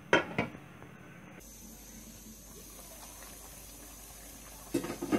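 A glass lid clinks twice against the rim of an aluminium pot, then the salted water with the cauliflower florets bubbles faintly at the boil. Two more light knocks come near the end.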